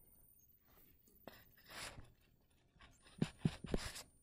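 Light tapping and scratching of a stylus as an arrow is drawn: a single soft click about a second in, a brief stroke, then a quick run of short taps near the end.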